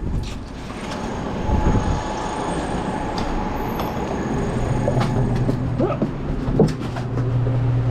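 Walk-in cooler refrigeration fans running with a steady whir and a low hum that grows stronger about five seconds in, with a few knocks.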